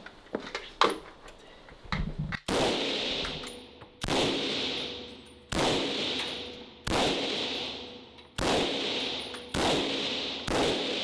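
Gunshots fired at an indoor range: about eight sharp shots, roughly one every second and a half, each followed by a long ringing echo off the range walls.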